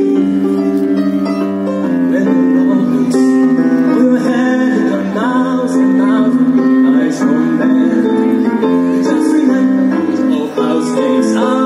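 Live stage music over a PA: a man and a woman singing into handheld microphones, backed by a small string ensemble of violins and cello with a keyboard, in held notes and flowing sung lines.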